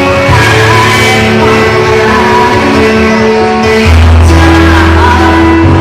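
A song: a singing voice holding long, steady notes over a musical accompaniment.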